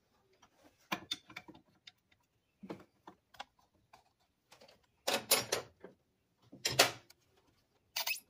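Metal hand wrenches clicking and clanking on an A/C refrigerant line fitting as a backup wrench holds it and another turns it, in irregular clicks with two louder bursts of clatter about five and seven seconds in.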